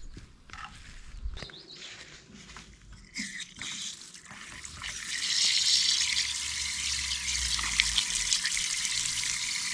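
Water running or splashing steadily, after a few light scattered knocks and rustles; it starts about three seconds in and grows louder about two seconds later.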